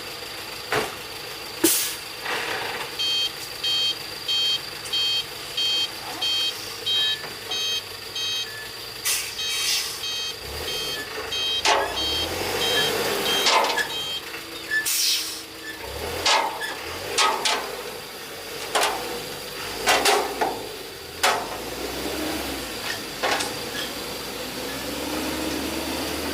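Heavy earthmoving machinery working: a diesel engine running steadily under a backup alarm beeping about twice a second for some ten seconds, followed by a string of sharp knocks and clunks.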